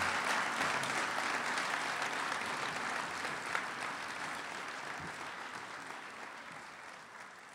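Audience applauding, a dense patter of many hands clapping that fades out gradually toward the end.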